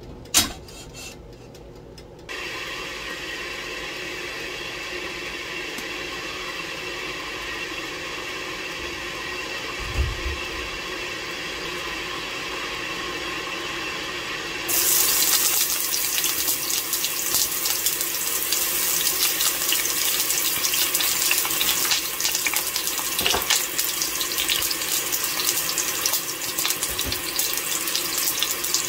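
A click, then a steady hiss from about two seconds in. About halfway through, onion and ginger go into hot oil in a stainless steel pot and start sizzling with a dense, steady crackle.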